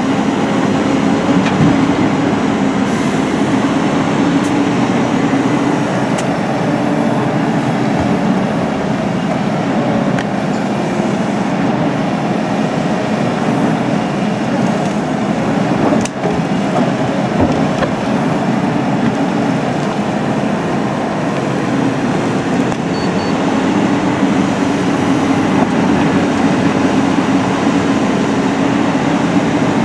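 Cat 320CL tracked excavator's diesel engine running steadily under load as it digs and swings bucketloads of earth into a dump truck, with one sharp knock about halfway through.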